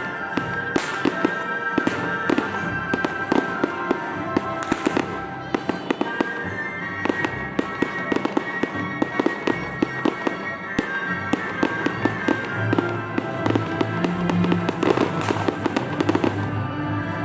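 Fireworks display: a rapid, continuous run of aerial shell bangs and crackles, with music playing underneath.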